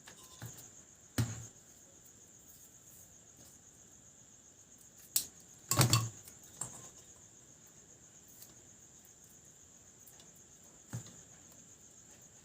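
A few short clicks and knocks from hands handling wires and electrical tape while insulating wire joints, the loudest about a second in and near the middle. Under them runs a steady high cricket trill.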